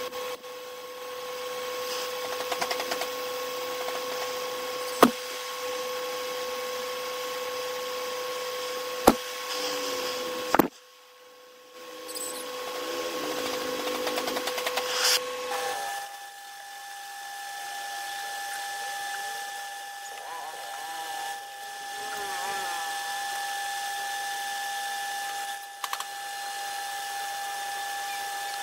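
Metal lathe spinning a steel shaft with a steady whine, a gas torch hissing against the turning work in the first half. About halfway through the whine jumps to a higher pitch and carries on steadily, with a few sharp clicks along the way.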